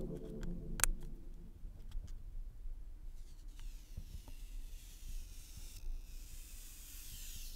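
Factory screen protector film being peeled off the Nexus 5's glass front by hand: a few light clicks of fingertips working at the film's edge, then a faint hiss as the film lifts away over the later seconds.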